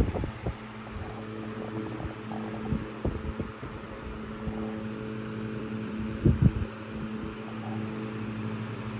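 Antique Emerson Electric 12-inch table fan running, with a steady motor hum and soft air noise, and a couple of short knocks about six seconds in.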